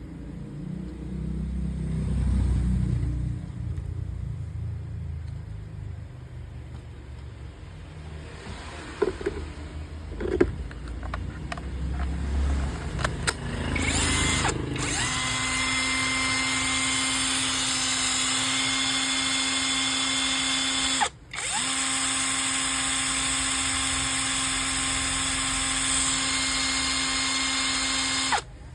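Makita cordless drill running at a steady speed with an even whine for about six seconds, stopping for a moment, then running again for about seven seconds before stopping. Before the drill starts there is a low rumble and a few clicks.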